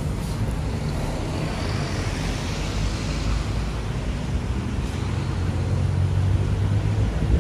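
Road traffic noise: a steady rush of passing vehicles, with a low engine hum that grows louder in the second half.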